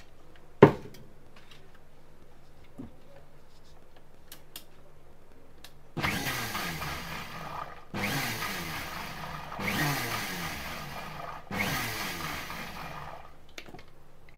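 Sujata electric mixer grinder blending egg and oil for mayonnaise in four short pulses of about two seconds each, the motor's pitch falling during each burst. A single sharp knock comes about a second in, before the pulses.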